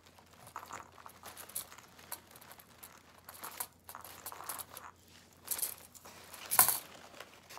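Wired ribbon crinkling and rustling as it is twisted and shaped by hand, in irregular bursts, with a sharper crackle about a second before the end.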